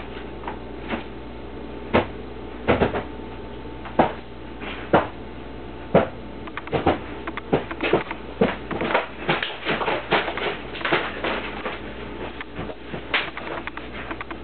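Irregular knocks, clicks and rustles of people moving about and handling things, coming thicker and faster about halfway through.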